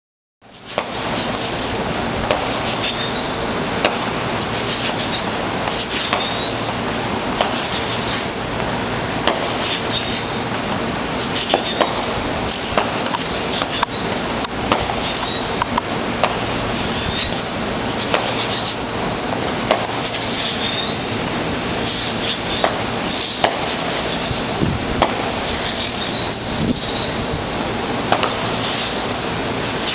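Distant fireworks display: irregular sharp pops and cracks over a steady rushing noise, with short high chirps every second or two.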